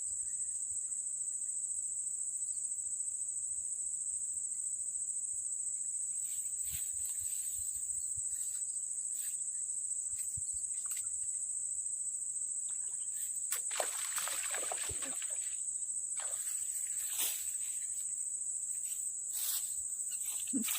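Steady, high-pitched insect chorus, with scattered clicks and short rustling noises in the second half, the longest about fourteen seconds in.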